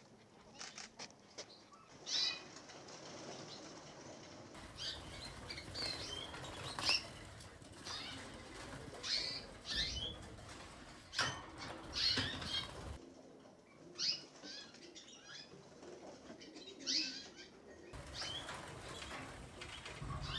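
Caged canaries chirping in short high calls and fluttering their wings inside wire cages, with sharp clicks and rustling throughout.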